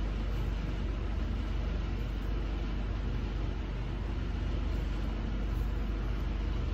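Truck engine idling: a steady low drone with an even hum underneath, unchanging throughout.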